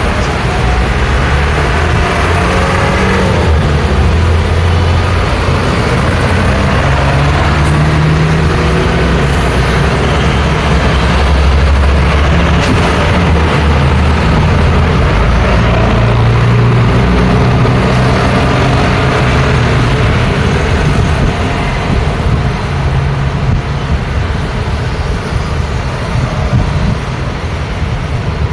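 Continuous road traffic with heavy vehicles: engines of trucks, buses and cars running and passing, their engine notes rising and falling, loudest about halfway through.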